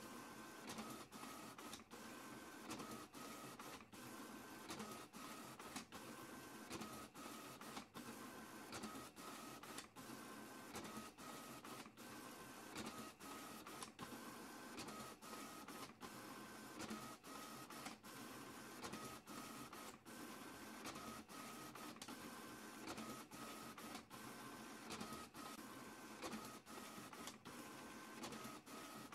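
Printer running a long print job, feeding and printing sheets in a faint, steady mechanical rhythm with short, regular pauses.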